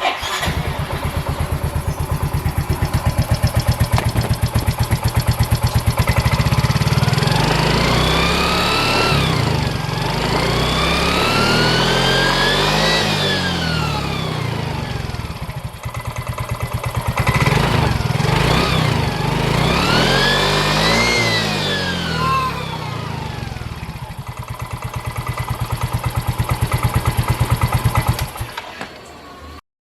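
Automatic scooter engine running and being revved, with a high whistle from a bent iron plate set against its cooling fan that glides up and down in pitch with the revs, in two bouts of throttle blips. The engine stops near the end.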